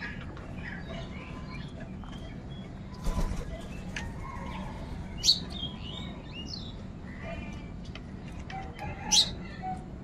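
House crows calling, short harsh caws and chirps scattered irregularly, with two loud, sharp high calls, one in the middle and one near the end, over a steady low background rumble. A dull thump comes about three seconds in.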